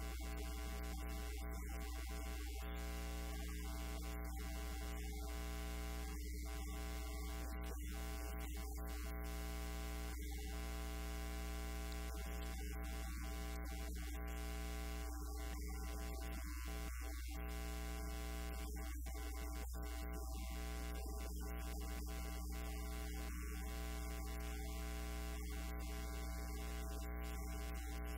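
Steady electrical mains hum with a buzz of many steady overtones and a constant hiss over it, the fault in the recording's audio feed.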